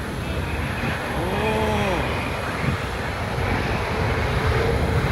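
Four jet engines of a Boeing 747 (the VC-25A Air Force One) running loud during the landing rollout just after touchdown, swelling about a second in.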